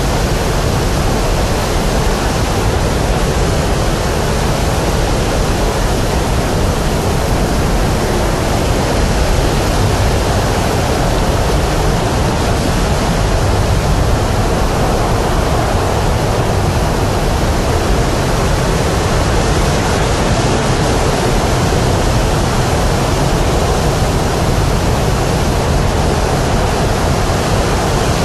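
Steady, unbroken rushing noise of blowing air, heaviest in the low rumble.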